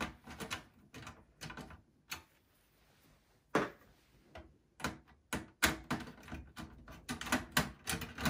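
Irregular clicks, taps and knocks of parts being handled inside a desktop PC's open steel chassis: cable connectors being worked loose and a screwdriver touching metal. There is a short lull a couple of seconds in, then the clicking picks up again, thicker toward the end.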